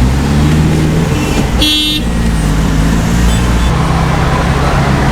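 Road traffic with a steady low engine drone, and a short car-horn toot about one and a half seconds in.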